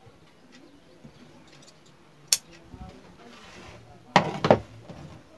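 Tailor's scissors and cloth handled on a wooden cutting table: a sharp metallic click a little over two seconds in, a brief rustle of cloth, then two loud knocks close together about a second before the end.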